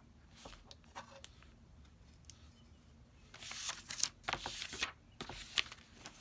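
Hands handling paper and small objects: soft rustling with a few light clicks, busiest a little past the middle, as oracle cards and their guidebook are handled and a pair of glasses is put on.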